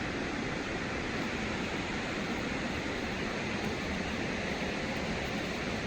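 Waterfall rushing: a steady, even rumble of water falling onto rocks.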